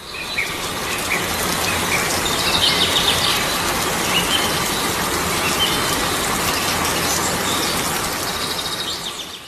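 Steady rain falling, with small birds chirping over it and a quick run of chirps about two and a half seconds in.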